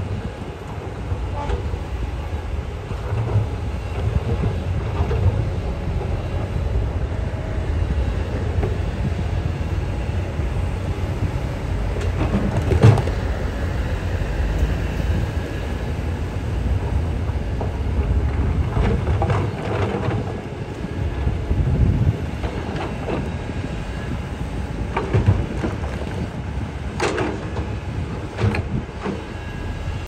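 Komatsu D61EX crawler bulldozer's diesel engine running steadily under load, with its steel tracks clattering and rock grinding. A few sharp knocks stand out, and there is a brief falling squeal near the end.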